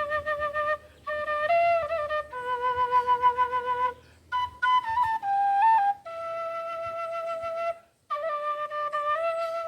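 Quena (Andean end-blown notched flute) playing a slow solo melody: long held notes with a slight vibrato, separated by short breaths, with pauses just under a second in, about four seconds in, and about eight seconds in.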